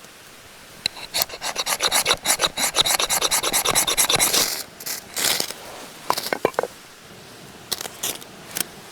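Hand saw cutting through wood with a quick run of back-and-forth rasping strokes for about three and a half seconds, then a few scattered strokes.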